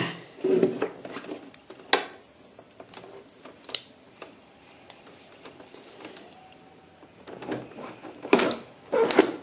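Handling noise of a tape-wrapped sealed battery pack being pushed into a UPS battery compartment: scraping and rubbing as it meets resistance against the tape, with a few sharp clicks and knocks, and a cluster of louder knocks near the end.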